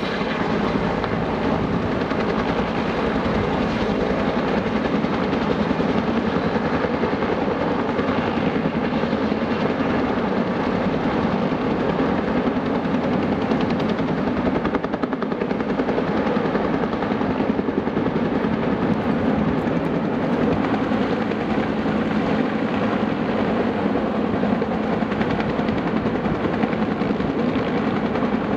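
Bell UH-1H Huey helicopter running, its two-blade main rotor beating rapidly and steadily.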